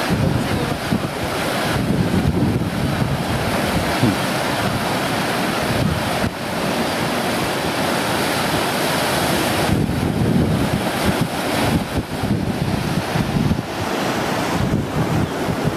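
Heavy storm surf breaking and surging at a tidal-surge high tide, a continuous loud wash of sea noise, with wind buffeting the microphone in gusts.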